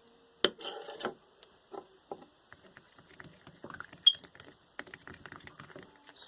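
Scattered clicks, knocks and rattles of containers and utensils being handled on a tabletop while slime ingredients are prepared. A sharp click and a short rattle come about half a second in, and the loudest tick comes about four seconds in.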